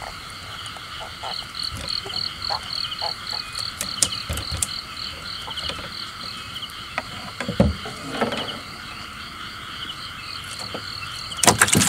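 Night chorus of frogs and insects: steady high trilling with a pulsing call repeating about three times a second, and scattered light clicks and knocks over it.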